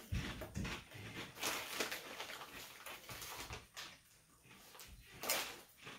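Plastic potato-chip bag crinkling and rustling in irregular crackles as it is handled, louder about a second and a half in and again near the end.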